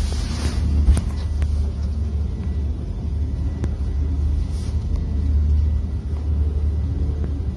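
Ambulance boat's engines giving a steady low rumble heard inside the wheelhouse in heavy seas. In the first second a wash of spray sweeps across the windows, and a few light knocks follow.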